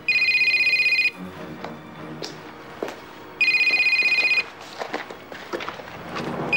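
Telephone ringing three times, each ring a warbling tone about a second long, about three seconds apart.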